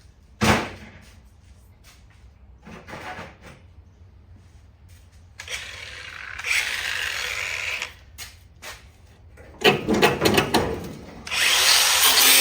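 A power tool cutting through the rusty sheet-metal plenum panel, running in two stretches, the louder one starting near the end. A sharp knock about half a second in and a run of metallic clanks and rattles shortly before the last cut.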